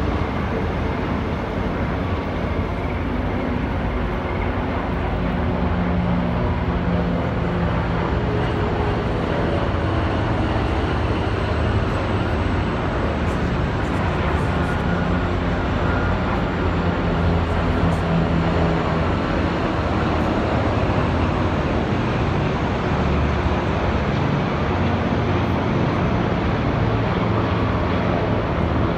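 Helicopters flying over, a steady loud drone of rotors and engines with low tones that slowly drift in pitch.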